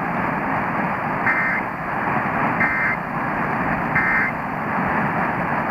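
Emergency Alert System end-of-message code: three short two-tone data bursts about 1.3 s apart, over a steady broadcast hiss. The bursts close the monthly EAS test.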